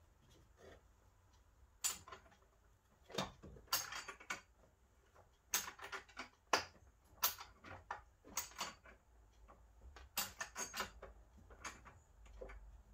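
Irregular sharp metallic clinks and clicks from tools and steel suspension parts being handled at a car's front hub and strut, about a dozen with brief ringing, some in quick little clusters.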